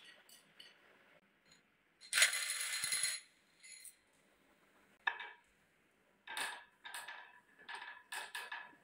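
Glass marbles clattering and clinking on a wooden marble run. A loud clatter lasts about a second, starting about two seconds in. Later come a sharp knock and a run of short ringing clinks as marbles are set into the wooden track.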